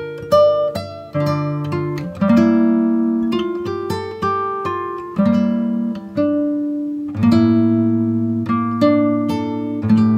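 Background music: a guitar plucking single notes and chords, a few a second, each note ringing and fading.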